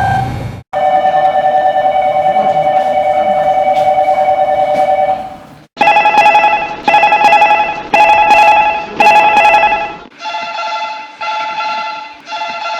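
Korean metropolitan subway platform train-approach signals: an electronic trill warbles rapidly for about five seconds and cuts off. Then a series of electronic bell-like dings follows, five loud strikes and then four softer two-note strikes.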